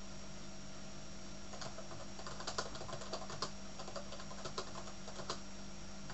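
Typing on a computer keyboard: a run of irregular key clicks that starts about a second and a half in and stops shortly before the end, over a steady background hum.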